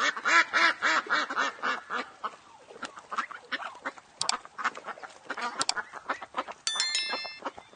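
Ducks quacking: a quick run of quacks at about five a second, then sparser quacks and clicks.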